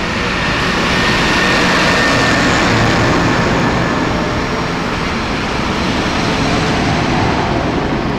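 Large modern diesel farm tractors, among them a John Deere, driving past one after another on a tarmac road. Engine note and big-tyre road noise swell slightly in the first few seconds as the nearest tractor goes by.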